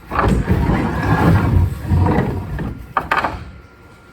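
Loud rumbling and scraping as the stripped-down sweeper is handled and shifted on the floor, then a few sharp knocks about three seconds in.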